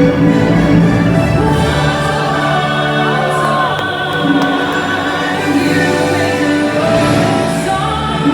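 Orchestral show music with a choir singing long held notes.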